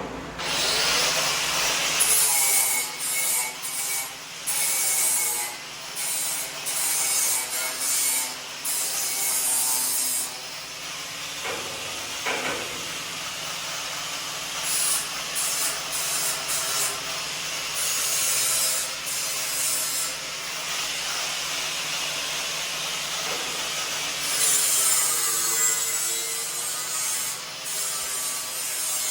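Metalworking on a steel race-car chassis: a harsh, hissing, scraping noise in repeated short bursts of a second to a few seconds, stopping and starting.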